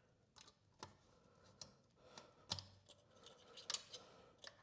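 Faint, irregular metallic clicks and ticks from a spring puller unhooking an exhaust retaining spring on a motorcycle's slip-on exhaust, with a couple of sharper snaps near the middle.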